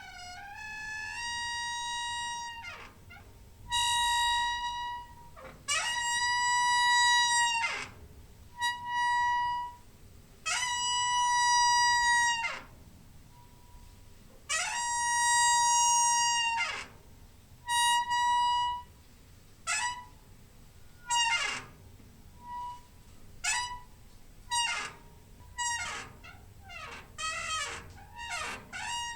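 Door hinge squeaking over and over in long, high, whistle-like creaks. Each one slides into a steady pitch and drops away at the end. In the last few seconds the creaks turn short and come in quick succession.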